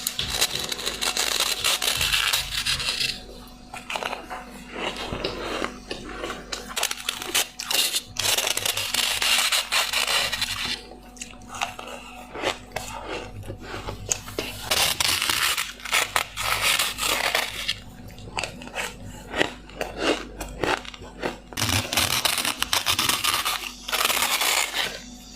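Ice being bitten and chewed: dense crunching and crackling in runs of a couple of seconds with short pauses between.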